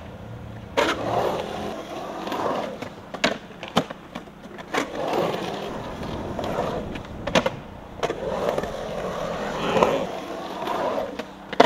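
Skateboard wheels rolling and grinding on concrete. Several sharp clacks of the board and trucks striking the concrete break in at uneven intervals, among them two close together about seven seconds in and one at the very end.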